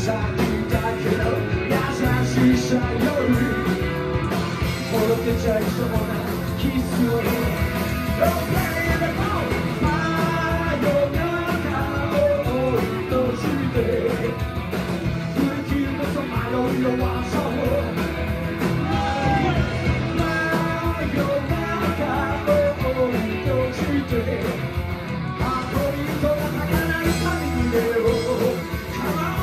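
Live rock and roll band playing: upright double bass, two hollow-body electric guitars and drums, loud and continuous through the club's PA.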